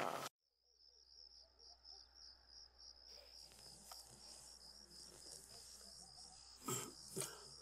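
Cricket chirping in a fast, steady pulsed trill. Two brief knocks come near the end.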